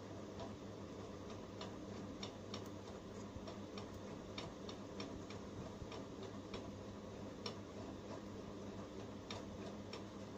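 Light, irregular clicks and taps of a smartphone's plastic frame and circuit board being handled in the fingers, a few per second and unevenly spaced, over a steady low electrical hum.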